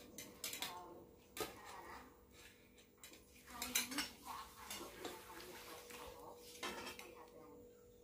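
Cutlery clinking against plates and bowls as food is served: scattered light clinks and scrapes, with a louder cluster a little before four seconds in.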